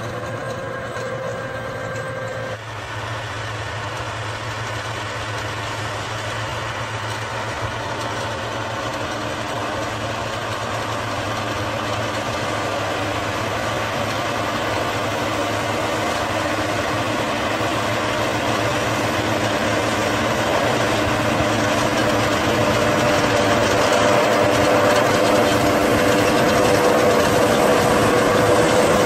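John Deere 7530 tractor's six-cylinder diesel engine running steadily under load as it pulls a PTO-driven rotavator through the soil, growing steadily louder toward the end.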